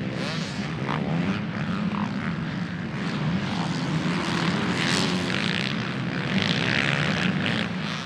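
Motocross bike engines revving as the bikes ride through sand, their pitch wavering up and down.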